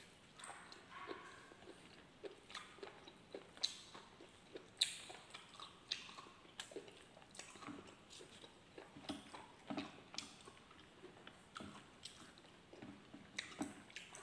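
A person chewing lechon and rice with the mouth open: irregular wet mouth clicks and smacks, a few a second, with a few louder ones a few seconds in.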